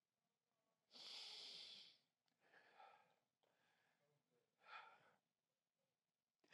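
Near silence, broken by a man's faint breaths into a handheld microphone: one long breath about a second in, then two short, fainter ones.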